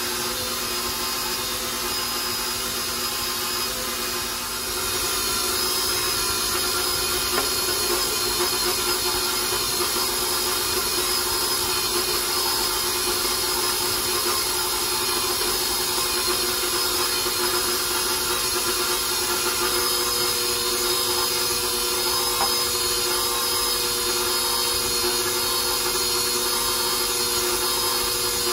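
KitchenAid Professional 6 stand mixer motor running at speed, the paddle beating hot choux paste as egg is added; the mixer is turned up to drive the steam out of the dough. It runs steadily and gets a little louder about five seconds in.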